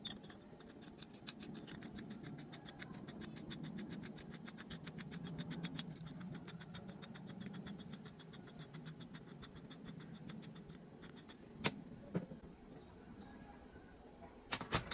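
Steel clamp parts being handled: a fast, fine, even ticking of metal for most of the stretch. Near the end come a few sharp metal clinks, the loudest two close together.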